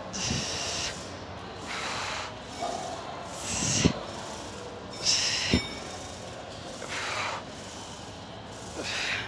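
A woman's forceful, hissing breaths in rhythm with leg press reps, six of them about every second and a half to two seconds. Two sharp clacks come near the middle, about four and five and a half seconds in.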